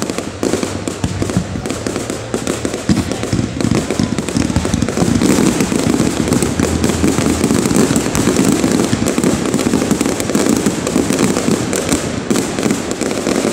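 Fireworks display in a dense, rapid barrage of bangs and crackles, loudest in the middle. It is the closing barrage of the display.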